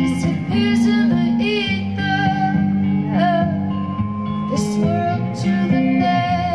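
Live band music: electric guitar and low held chords under a woman's voice singing long, wavering notes.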